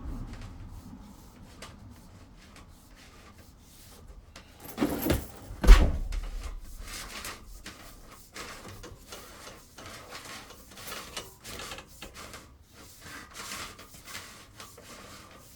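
Scattered knocks, clicks and rubbing clatter, loudest in two heavy thumps about five and six seconds in.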